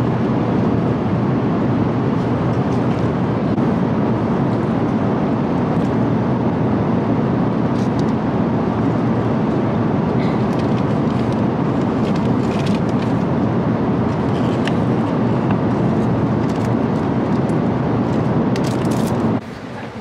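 Steady cabin noise of an airliner in flight, an even rushing drone of engines and airflow, with a few faint clicks. It cuts off abruptly near the end to a quieter hall ambience.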